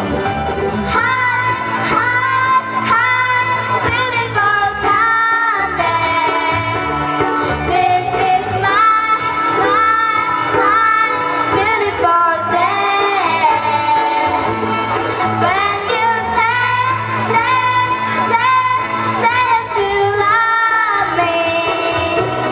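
A song sung with ukulele accompaniment, in high voices that are likely children's. Melody and strumming run on without a break.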